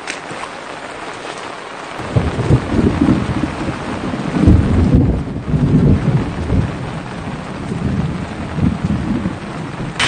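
Rain falling, with a loud, uneven low rumble that sets in about two seconds in and keeps going.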